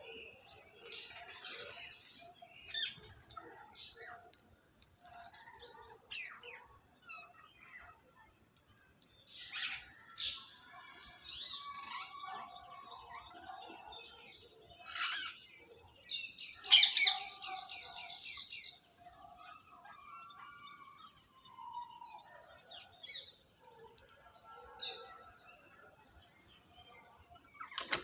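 Rose-ringed parakeets and other birds chirping and calling in short bursts, with a loud run of harsh calls about two-thirds of the way through. A brief flutter of wings comes right at the end as a parakeet takes off.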